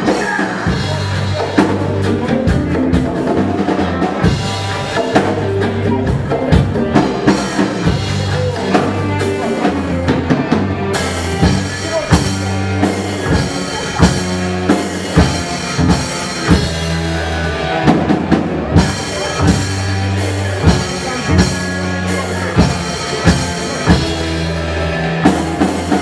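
Live rock band playing an instrumental passage: a drum kit keeps a steady beat under bass and electric guitar, and the cymbals get brighter about eleven seconds in.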